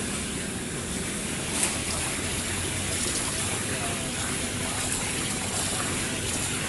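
Steady hissing rush of a gas brazing torch flame, with one short sharp click about a second and a half in.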